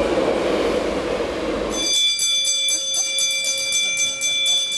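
A passenger train passing close by: a steady rumble and rush of noise. About two seconds in this gives way abruptly to a bell ringing over and over in rapid strikes, its high ringing tones held throughout.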